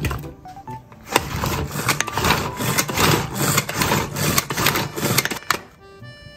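Pull-string manual food chopper being yanked again and again to chop onion: a quick run of whirring, rasping strokes as the spinning blades hack through the onion, starting about a second in and stopping shortly before the end. Faint background music can be heard under it.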